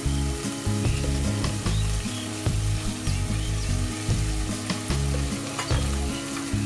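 Boneless chicken pieces and shrimp sizzling in hot oil in a frying pan, with frequent clicks and scrapes of a spatula stirring them against the pan.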